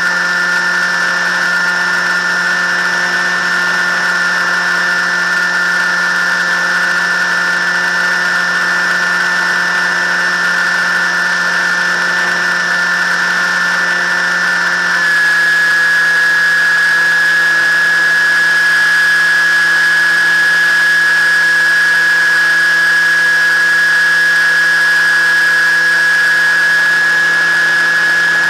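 Motor and propeller of an FPV model aircraft in flight, heard from the onboard camera as a steady high-pitched whine. About halfway through the pitch shifts slightly, settles into one steady tone and gets a little louder.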